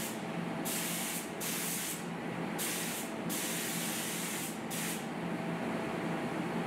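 Compressed-air gravity-feed spray gun hissing as it lays on wet-on-wet primer, in a series of short bursts of about half a second each as the trigger is pulled and released, over a steady background hum.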